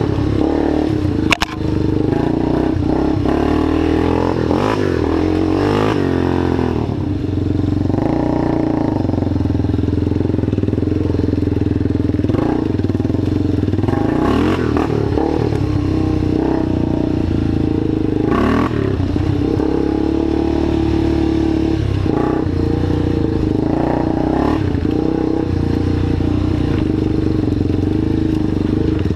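A small engine running steadily, its pitch wavering now and then. A sharp click and a brief drop in level come about a second and a half in.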